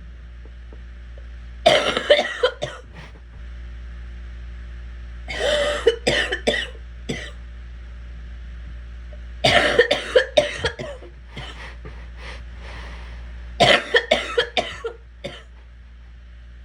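A sick person coughing in four fits of several coughs each, with pauses of a few seconds between fits.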